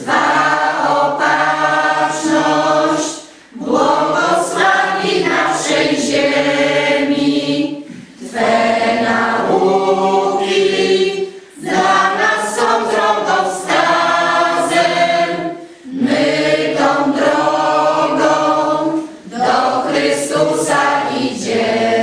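Mixed choir of women's and men's voices singing together in phrases of three to four seconds, with a short breath pause between each.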